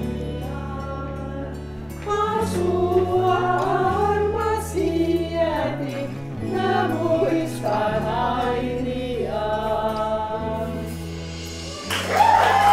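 Background music: a slow song with a singing voice over long held low chords. Near the end a room of people breaks into clapping and cheering.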